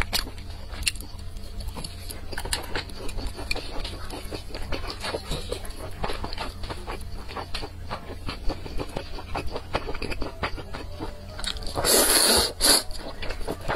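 Close-miked eating sounds of spicy noodles: wet chewing and small mouth clicks, then a loud slurp as a mouthful of noodles is sucked in near the end.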